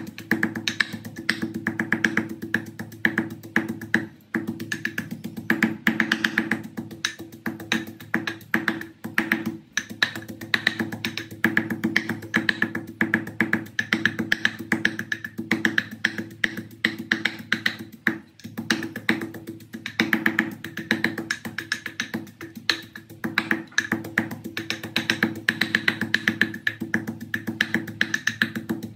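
Background music with plucked guitar and a steady percussion beat.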